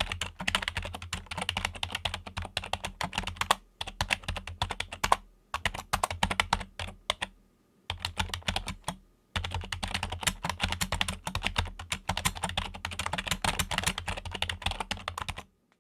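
Fingers typing fast on a Logitech computer keyboard, a dense run of key clicks broken by short pauses, stopping just before the end.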